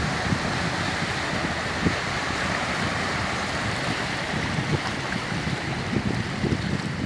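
Sea waves washing onto a beach in a steady rush, with gusts of wind buffeting the microphone in low thumps.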